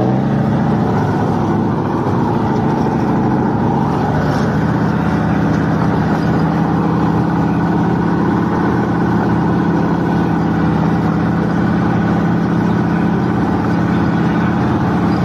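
M80A infantry fighting vehicle under way, its engine running loud and steady, heard up close from on top of the hull. The engine note settles into a steady drone about four seconds in.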